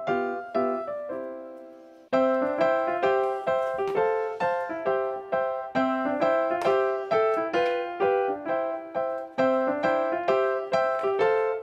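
Background piano music: a light tune of quick, evenly paced notes. It dies away and then restarts abruptly about two seconds in.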